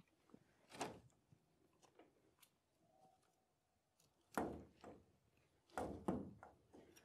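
Gloved hands working loose soil around a newly planted grapevine: a few soft rustling thuds as the soil is scooped and pressed down, about a second in and again twice from about four seconds in.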